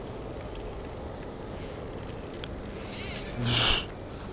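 Spinning reel's drag and mechanism clicking and ticking under the strain of a hooked mullet. A brief louder rasp comes about three and a half seconds in.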